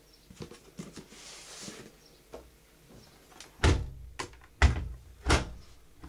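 Soft rustling of towels being pushed into a front-loading washing machine drum, then three loud thuds about a second apart as the machine's porthole door is pushed shut.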